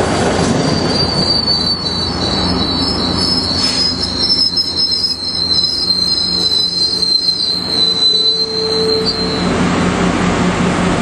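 MBTA commuter rail coaches rolling slowly past the platform with a loud, high, steady wheel squeal that sags slightly in pitch and stops near the end, over the continuous rumble of the train.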